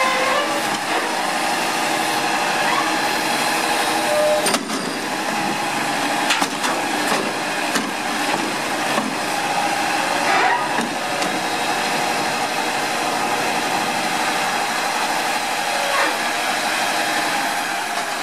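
New Way Mammoth front-loader garbage truck running its hydraulic lift: the engine is held at raised revs with a steady whine while the forks raise a steel dumpster over the cab, dump it and lower it. Several sharp bangs of the bin knocking against the truck sound through it.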